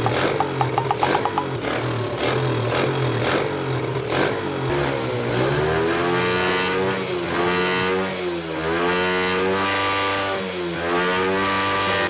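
Motorbike engine running with a steady rhythmic beat, then revved from about five seconds in, its pitch rising and falling several times as the throttle is opened and let off.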